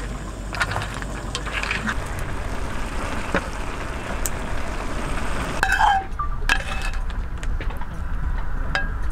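Metal tongs and utensils clinking against a stainless steel pot and bowl as pasta with clams is stirred and dished up, over a steady low rumble. Scattered sharp clinks, the loudest cluster about six seconds in.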